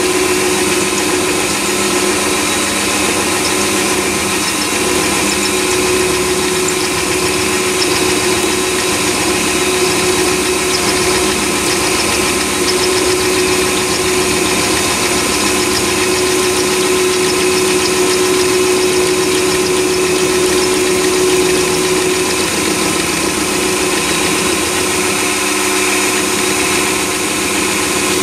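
Chinese mini lathe running in low gear at about 400 RPM, driving a 10 mm four-flute HSS end mill through a 10 thou cut in 316 stainless steel: a steady whine from the motor and gearing over the sound of the cut. The set-up is cutting well and is rigid, with no movement in the milling slide.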